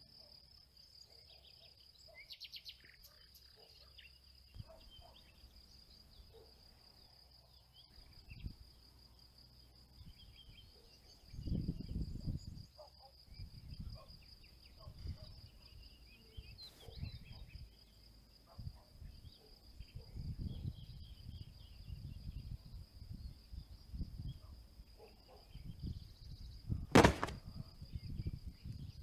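Open-air field ambience: insects chirring steadily at a high pitch, with irregular low gusts of wind buffeting the microphone from about a third of the way in. A single sharp click near the end is the loudest sound.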